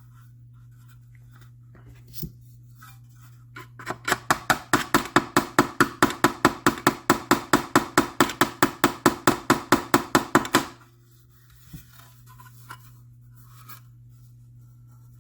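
Body hammer tapping metal trim against a dolly in a fast, even run of about five light strikes a second for some six seconds, each with a short ringing note: hammering out a low spot in the trim. A few isolated taps before and after.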